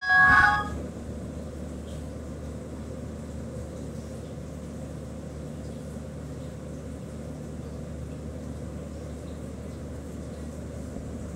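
A brief, loud sound made of several steady tones at the very start, then a steady low hum of background noise.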